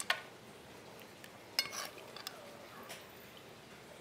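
Kitchen utensils clinking against cookware. There is a sharp clink at the start, a louder cluster of clinks about a second and a half in, then a few lighter taps.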